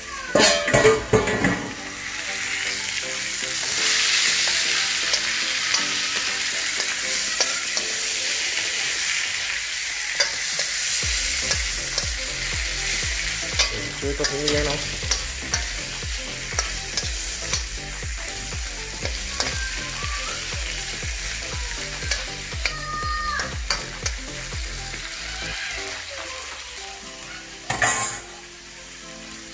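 Vegetables sizzling as they are stir-fried in a stainless steel wok over a gas flame, with a metal spoon scraping and clicking against the pan. A few louder clatters come about a second in and again near the end.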